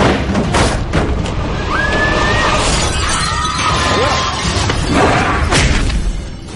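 Movie fight sound effects: glass shattering and sharp crashing impacts, with several crashes close together about a second in and another about five and a half seconds in.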